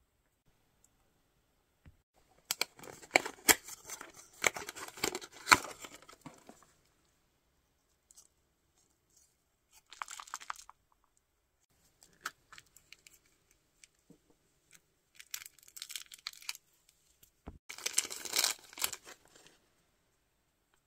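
Plastic toy packaging crinkling and tearing as it is unwrapped by hand, in four bursts of crackling, the longest in the first few seconds.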